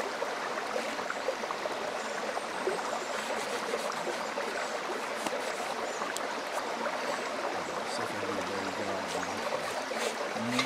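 Creek water running in a steady rush, with a few faint crackles from a wood campfire.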